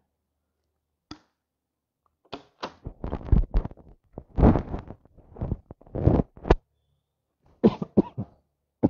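A man coughing close into a handheld microphone: a fit of repeated coughs starting about two seconds in, a short pause, then a few more coughs near the end.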